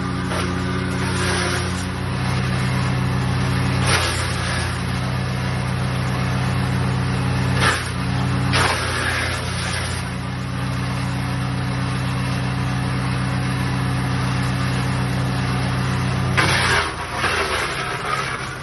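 The GreenMech CS80 wood chipper's 12 hp Loncin pull-start petrol engine running at a steady speed, with brief louder noisy bursts about 4 and 8 seconds in. Near the end the steady engine note breaks off amid louder, irregular noise.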